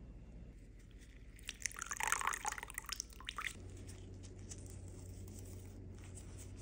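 Crisp rustling and crackling for about two seconds, from fresh thyme being stripped off its stems between gloved fingers. A steady low hum follows.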